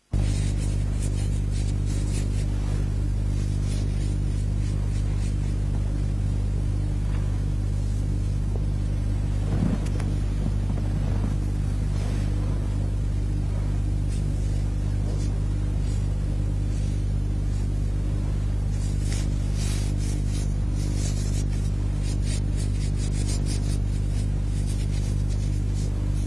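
A steady low hum with many evenly spaced overtones starts abruptly and runs on unchanged, with faint scattered crackles above it.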